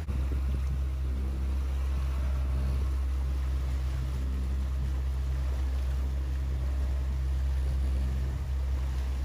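A boat engine running steadily, a low even drone with a hiss over it.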